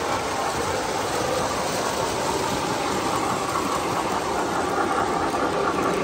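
O gauge model steam locomotive and its freight cars running on three-rail track: a steady rumble and clatter of wheels on the rails.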